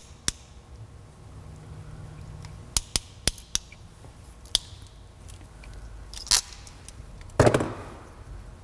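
Ratcheting wire crimper clicking as it closes on a heat-shrink butt connector: a series of sharp clicks in the first few seconds, then a louder snap near the end.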